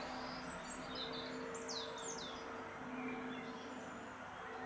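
Quiet outdoor ambience: a few short bird chirps, with two quick downward-sweeping calls about two seconds in, over a faint steady hum.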